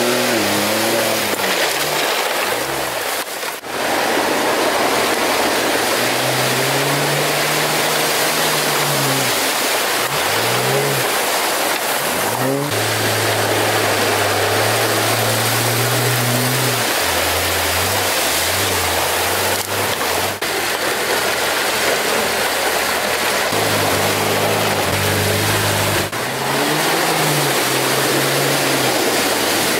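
Jeep Wranglers driving through deep water and mud, their engines revving up and down under load, with a constant rush of water splashing around the tyres.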